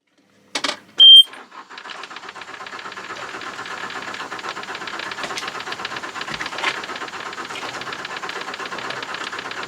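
A knock, then a short loud electronic beep, then a steady, fast-pulsing mechanical noise: a boat's Yanmar diesel being started, its panel alarm beeping at key-on.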